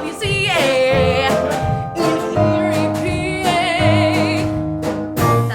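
A solo singer in a musical-theatre song holds long notes with a wide vibrato over a sustained instrumental accompaniment.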